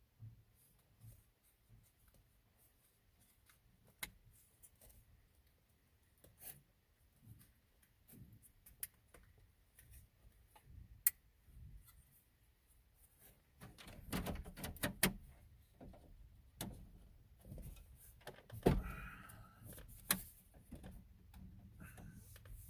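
Scattered small plastic clicks and knocks of hands handling dash trim and stereo parts, one sharp click about eleven seconds in and a busier stretch of knocking and rustling near the end.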